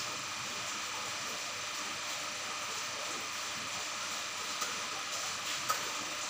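Aquarium filter running: a steady hiss of pumped, moving water with a faint motor hum, and two small clicks near the end.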